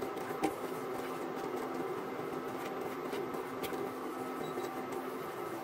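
Flour and oil sizzling steadily in a nonstick pan as the roux is stirred and browned, with a couple of faint spatula ticks.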